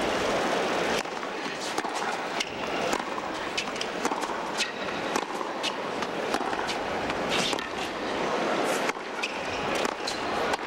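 Tennis rally on a hard court in a stadium. The crowd murmur drops away about a second in, then comes a string of sharp racket-on-ball strikes and footfalls. Crowd noise swells again near the end.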